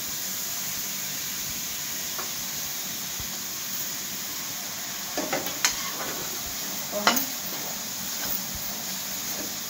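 Chopped tomatoes and wet spice paste sizzling steadily in hot mustard oil in a kadai. Partway through, a few sharp metal clinks as a ladle stirs against the pan.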